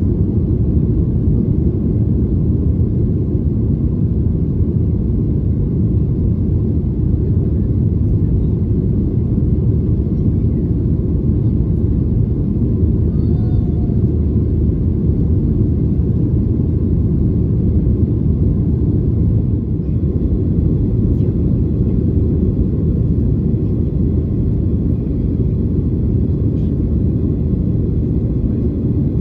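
Cabin noise inside a Boeing 737-800 during its climb after takeoff: a steady low rumble of the CFM56 engines and airflow.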